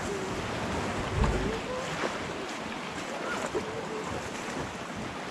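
Steady wash of wind and small waves lapping at the rocky shoreline, with a low thump about a second in.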